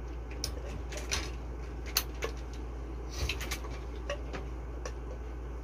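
Plastic toy pieces clicking and knocking as they are handled: scattered, irregular light taps, a little cluster of them about three seconds in, over a steady low hum.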